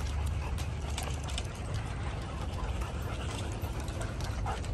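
Dogs' claws clicking on a wooden deck as a pack of dogs moves about, scattered light clicks over a steady low rumble.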